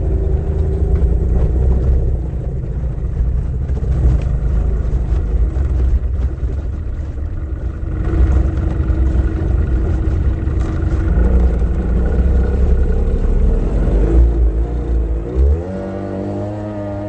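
Racing powerboat's outboard engine running hard at speed, heard from inside the cockpit with the rush of wind and water. Near the end the engine note drops and climbs again a couple of times as the throttle is eased and reopened.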